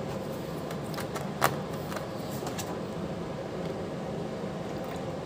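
Steady low mechanical hum of the room, like an air conditioner or fan, with one light click about a second and a half in.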